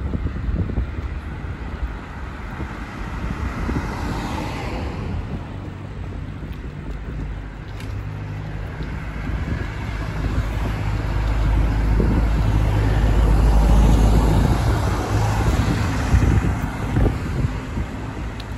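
Road traffic on a city street heard from a moving bicycle, with vehicles passing. A low engine hum builds and is loudest about two-thirds of the way through.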